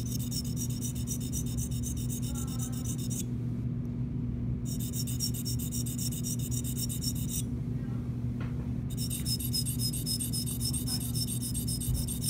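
A flat sharpening stone is drawn in quick strokes against the blade of a hand-held dental sickle scaler, which is held still while the stone moves. This makes a fast, even rasping at about four strokes a second, in three runs of a few seconds with short pauses between. A steady low hum runs underneath.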